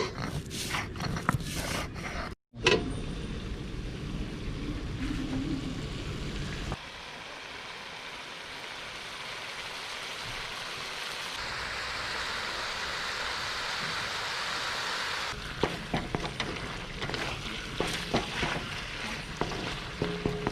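Chicken frying in oil in a kadhai: a steady sizzle, with the clatter and scrape of a spatula stirring at the start and again near the end.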